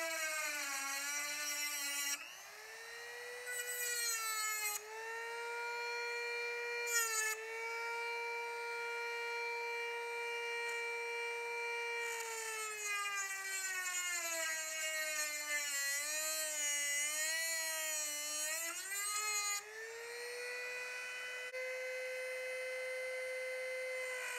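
Handheld Dremel-style rotary tool with a cutoff wheel grinding through the steel teeth of a chainsaw chain. The motor whines high and steady when the wheel runs free. Its pitch sags and wobbles each time the wheel is pressed into a tooth, near the start, through the middle-to-late stretch and again at the end, then climbs back when it is lifted off.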